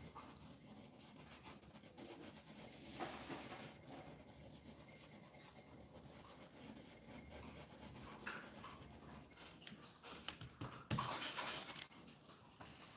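A paintbrush rubbing paint through a stencil onto a board: a faint, steady scratchy scrubbing. About eleven seconds in, a louder rustle lasts about a second.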